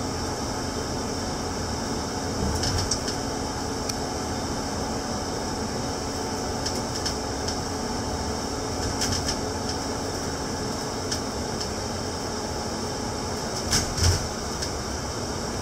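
Steady interior noise of a double-decker bus's upper deck at highway speed: engine drone, road noise and air-conditioning hiss, with several short rattles, the loudest near the end.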